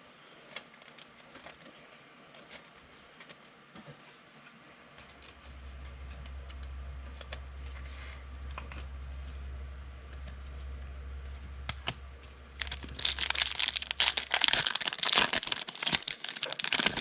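Foil trading-card pack wrapper being torn open and crinkled, a loud dense crackle in the last few seconds, after scattered small clicks of cards being handled. A low steady hum runs through the middle.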